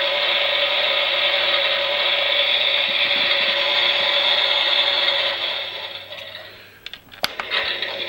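Toy front-loading washing machine's small electric motor turning the drum with a steady whine. A little after five seconds it winds down and stops, a few clicks follow, and it starts up again just before the end.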